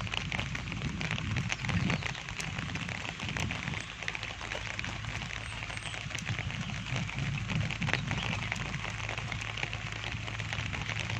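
Rain pattering: a steady hiss dense with fine drop ticks, with irregular low rumbles of wind or handling on the microphone.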